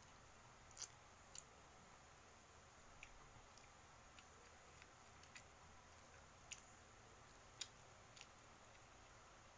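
Near silence with faint eating sounds: soft chewing of fried tofu and tempe and a scattering of small, irregular clicks as the food is handled at a small glass bowl of chilli sambal.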